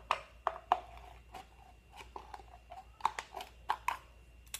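Thin hollow plastic of a ball-pit ball being cut open wider, giving a string of irregular sharp cracks and snaps, several close together near the start and another cluster a little past halfway.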